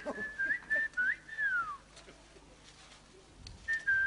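A person whistling a tune: a run of short notes ending in a falling glide, then a pause and one long held note near the end.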